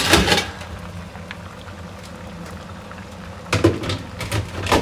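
A pot of water with small onions in it, boiling with a steady bubbling. There is a clatter at the very start and a few sharp knocks near the end, typical of a utensil against the pot.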